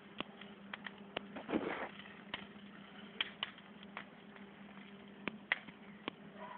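Wood fire crackling with irregular sharp pops, and a brief louder rush about a second and a half in, over a faint steady hum.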